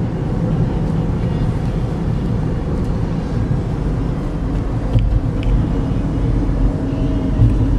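Inside the cabin of a 2013 GMC Terrain with a four-cylinder engine cruising at about 45 mph: steady low road and tyre rumble with a faint engine hum, free of squeaks or rattles.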